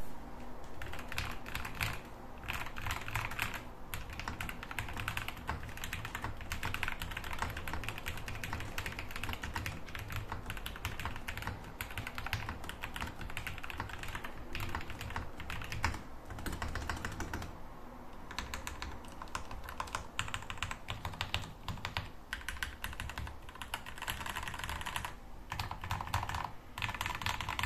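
Typing on a Yunzii Keynovo IF98 gasket-mounted mechanical keyboard with factory-lubricated Gateron Red Pro linear switches: a fast, continuous run of keystrokes with a couple of brief pauses.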